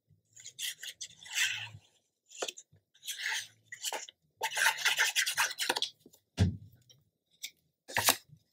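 Scraping and rubbing of cardstock as the tip of a squeeze bottle of liquid glue is drawn around its edge, in several short bursts. A thump follows past the middle, and a sharp tap comes near the end.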